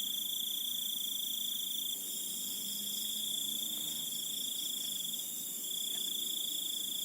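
Crickets chirring in one continuous high trill, with short breaks about two seconds in and near six seconds in.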